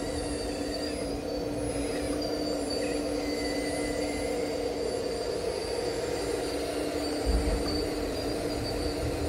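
Radio-controlled Liebherr 954 excavator model running with a steady mechanical whine, with a low thump about seven seconds in.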